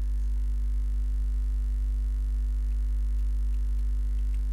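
Steady electrical mains hum with its overtones, with a few faint clicks from keys being typed in the second half.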